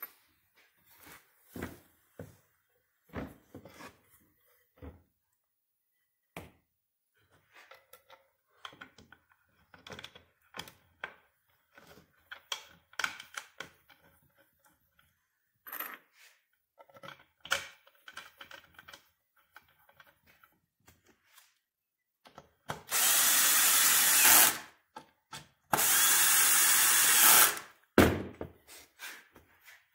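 Light knocks and clicks as the parts of a crib's pendulum glider mechanism are handled and fitted together, then near the end a cordless drill driving screws in two runs of about two seconds each, ending with a sharp knock.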